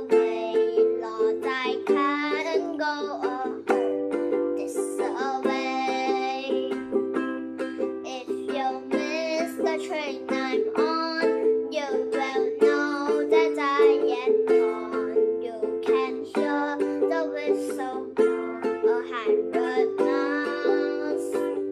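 A ukulele strummed in steady chords, with a child's voice singing the melody over it.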